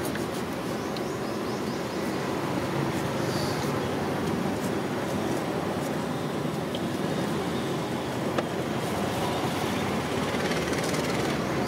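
Batter-coated brinjal bajji deep-frying in a wide iron kadai of hot oil: a steady sizzle, over a continuous low rumble. One sharp click a little past eight seconds.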